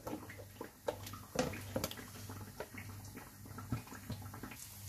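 Plastic lunchbox and food containers being handled: the lid pressed shut and containers set down, giving several light plastic clicks and knocks over a faint steady hum.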